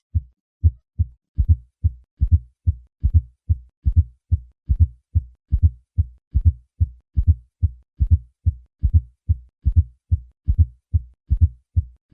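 Heart sounds through a stethoscope: a steady run of short, low-pitched thumps in a triple gallop rhythm, a fourth heart sound falling just before each first heart sound, followed by the second heart sound. This atrial gallop is the sign of a stiff, non-compliant left ventricle that needs a forceful atrial contraction to fill.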